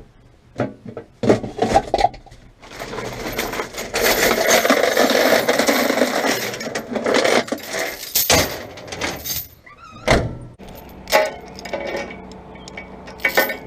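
Metal chains rattling and clanking as they are pulled out of a truck cab and handled: a few sharp clanks, a long stretch of steady rattling in the middle, then more separate clanks near the end.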